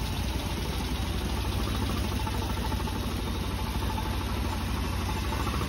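A 1903 George Richards veteran car's engine idling steadily, a low, even running sound.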